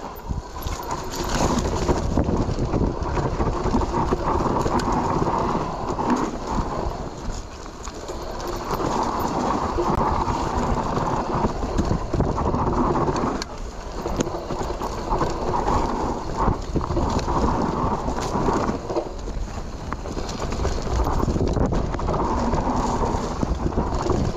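Mountain bike ridden fast down a dusty woodland trail: tyre and frame rattle with wind on the microphone, and a buzzing that comes and goes in stretches of several seconds.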